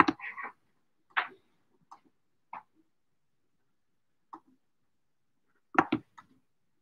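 Scattered small clicks and knocks from something being handled at a conference table near a microphone: about half a dozen short taps a second or so apart, with a louder double knock near the end.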